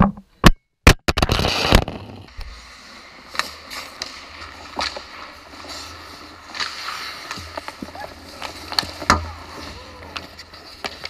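Ice hockey play heard from right beside the goal: skate blades scraping and stopping on the ice, with irregular sharp clacks of sticks and puck against stick and goalie pads. A few sharp clicks and a short loud rush of noise open it.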